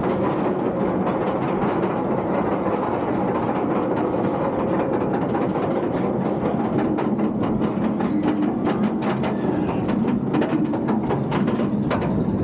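Wildfire, a B&M roller coaster, with its train being hauled up the chain lift hill: a steady mechanical rattle of the lift chain with rapid clicking from the anti-rollback ratchet. The clicks become sharper and more distinct near the end as the train nears the crest.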